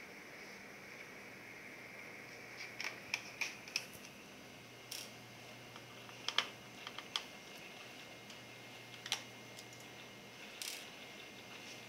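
Small sharp clicks and taps in irregular clusters from handling an Acer Aspire One netbook's plastic case and parts during disassembly, over a faint steady hiss.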